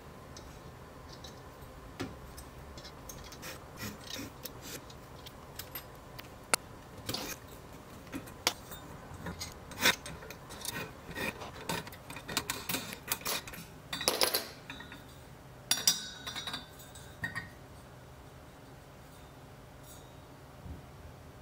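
Metal-on-metal handling: clicks, clinks and scraping rubs as pins and corner clamps come off a welded aluminium cube frame and the frame is worked loose from its aluminium jig plate. Scattered clicks throughout, with a few louder scrapes about two-thirds of the way through, then it goes quieter.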